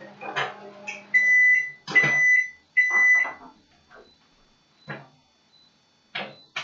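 Microwave oven running with a steady low hum that stops about a second in, followed by three long beeps signalling the end of the cooking cycle. A few knocks and clicks follow.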